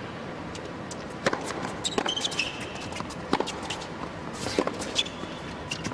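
Tennis ball struck with racket strings in a fast rally, several sharp pops about a second apart, with short high squeaks of tennis shoes on the hard court between shots.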